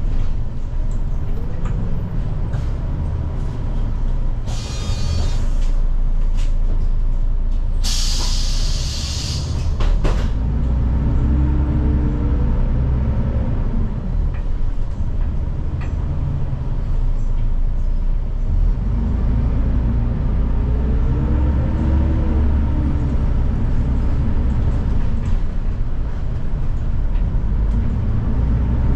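City bus heard from its rear seat: a steady deep engine rumble whose pitch rises and falls in slow arcs several times as the bus pulls away and changes speed. About eight seconds in there is a loud two-second hiss of compressed air, with a shorter hiss shortly before it.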